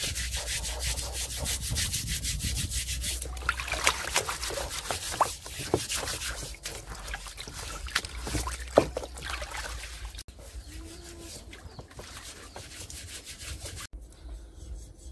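A steel-wool scourer scrubbing the blackened, torched skin of a beef leg in a basin of water, in fast, even rasping strokes. The scrubbing takes the char off down to the yellow skin. The sound grows quieter after about ten seconds.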